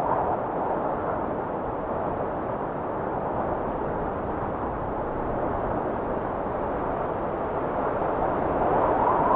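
Wind blowing in a steady low rush, swelling into a gust near the end.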